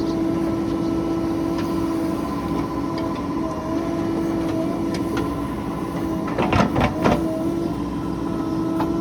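Heavy diesel engine running steadily, with a quick cluster of sharp metallic clanks and knocks about six to seven seconds in.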